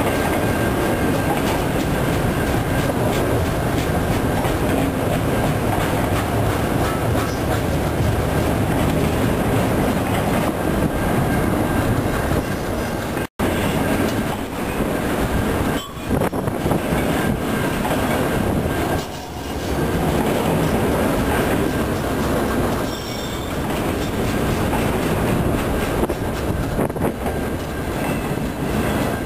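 Freight train of enclosed autorack cars rolling past close by: a steady rumble of steel wheels clattering on the rails, with a thin steady high whine from the wheels. The sound cuts out for an instant about thirteen seconds in.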